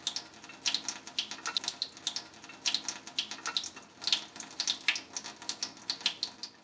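Running water: a quick, irregular patter of small splashes and trickles.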